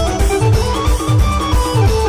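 Loud band music played through a truck-mounted sound system: a heavy bass drum beat about three times a second under a high melody with sliding notes.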